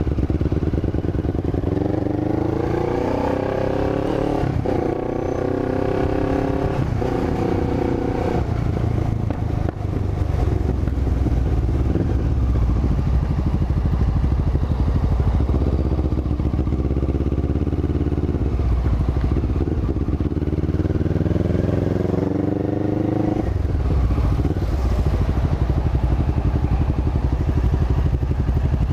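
1998 Honda CB500 parallel-twin engine under way, revving up through the gears twice: the pitch climbs and drops back at each shift, from about two to nine seconds in and again from about fifteen seconds in, with the throttle closed sharply about twenty-three seconds in.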